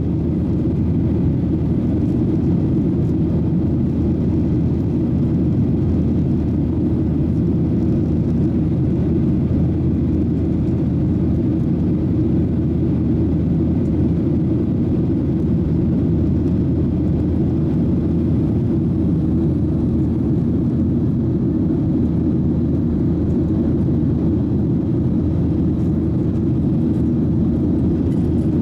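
Jet airliner engines and rushing air, a steady low rumble that holds level without rising or falling.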